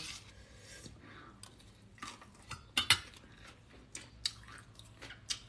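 A metal fork and spoon clinking and scraping against a stainless-steel bowl while mixing papaya salad: a few scattered light clinks, the loudest about three seconds in.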